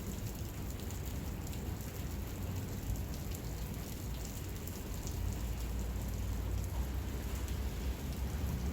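Steady rain falling, with many small drop ticks over a low rumble.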